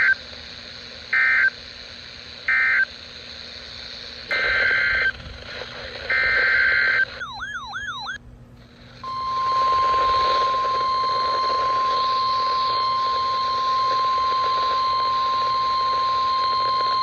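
Emergency Alert System data bursts: three short buzzy end-of-message bursts, then two longer header bursts and a brief warbling sweep. They are followed by the steady single-pitch NOAA Weather Radio warning alert tone, held for about nine seconds.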